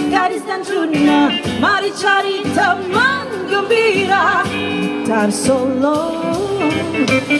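Two women singing an upbeat Malay pop song into microphones over a keyboard backing, the melody wavering and gliding continuously.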